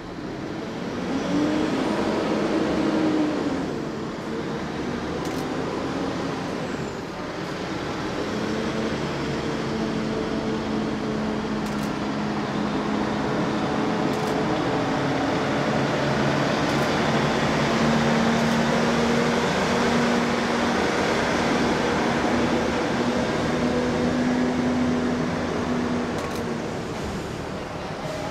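Heavy diesel trucks moving slowly through an intersection: an escort truck passes, then the tractor unit towing a Shinkansen car on a long low-loader trailer runs at steady low revs, its engine a steady drone with a humming note through most of the passage.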